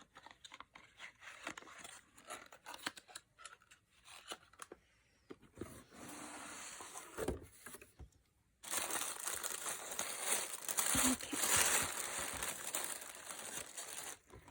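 Product packaging being handled and torn open: scattered small clicks and rustles at first, then a louder, continuous crinkling and tearing from a little past the middle onward.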